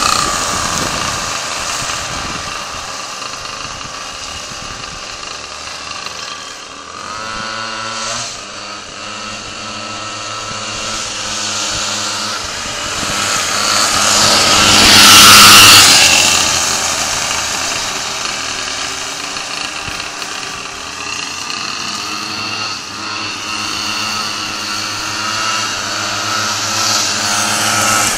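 The twin 49cc two-stroke pocket bike engines of a motorized drift trike running at speed. Their sound fades over the first few seconds, grows loudest about halfway through as the trike comes close, then falls off and rises again near the end.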